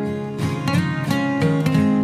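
Background music with a plucked string instrument, likely acoustic guitar, its notes picked in a quick, even rhythm over held chords.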